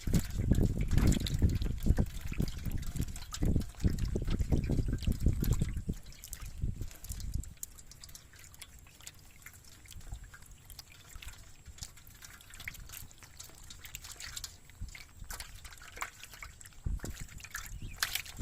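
Water splashing and trickling, heavy and rumbling for the first six seconds or so, then settling to lighter drips and small splashes.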